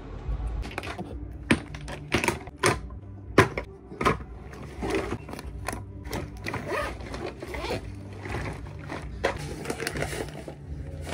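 Clicks, knocks and rustling as small toiletry bottles, containers and packets are handled and packed into a fabric pouch, irregular and close, over a low steady hum.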